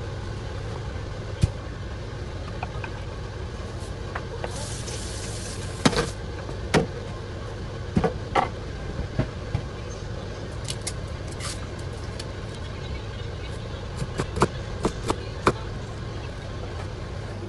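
Kitchen food-prep sounds: sharp knocks and taps of a knife and cleaver on a wooden cutting board and of bowls being set down, scattered, with a group in the middle and a quick run near the end, over a steady low hum.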